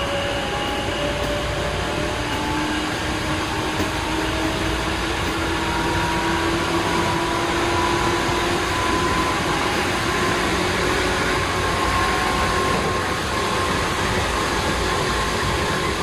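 Tokyu 8500 series electric train running, heard from inside the motor car: steady wheel and track rumble with a traction-motor whine that slowly rises in pitch as the train gathers speed.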